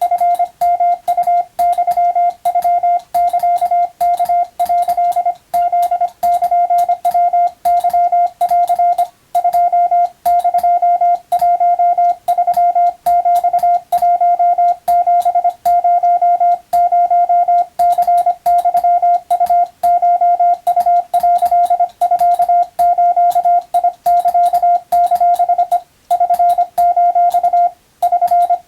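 Morse code (CW) tone of about 700 Hz keyed in quick, irregular dots and dashes, sending Japanese wabun telegram practice text. Sharp clicks mark the keying, and there are a few longer pauses between groups.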